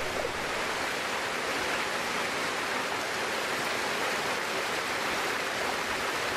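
A steady rushing hiss, like running water, with no tune or beat.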